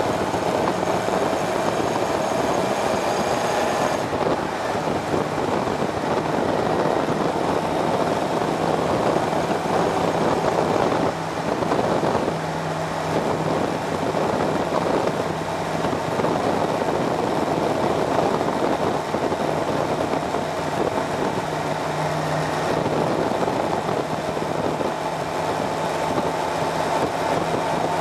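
Motorcycle engine running under way at steady road speed, heard from on board the bike over a constant rush of wind and road noise, with the engine note shifting a few times.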